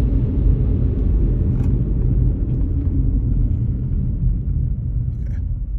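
Steady low rumble of a vehicle in motion, with no clear engine note.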